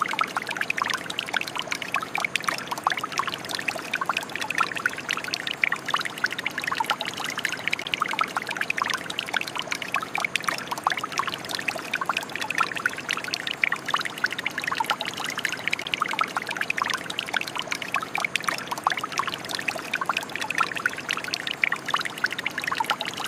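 Shower running: water spraying and splashing steadily, a dense spatter of many small droplet splashes.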